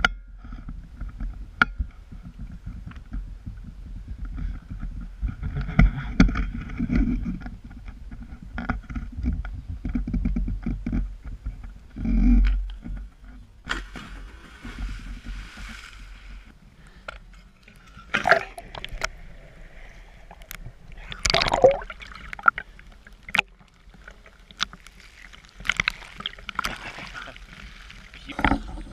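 Water sloshing and splashing around an action camera held at the surface, with wind rumbling on the microphone, most heavily in the first half. Sharp knocks and clicks run throughout, with a few louder splashes in the second half.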